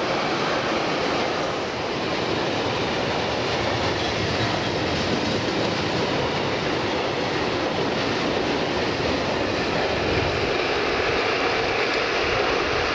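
Freight train of tank wagons rolling past: steady wheel-on-rail noise.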